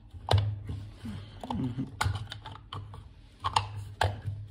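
Several separate sharp clicks and taps from small parts of a model tractor being handled, over a steady low hum.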